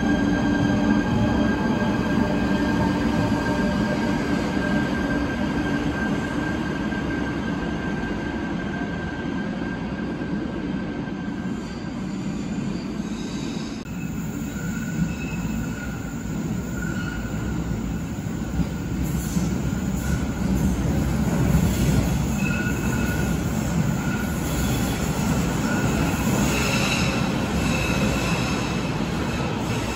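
Cologne KVB high-floor light rail trains in an underground station. First comes a steady rumble with a constant motor whine. After a cut about 14 s in, another train comes out of the tunnel and pulls in to the platform, with intermittent high wheel squeal over the running noise.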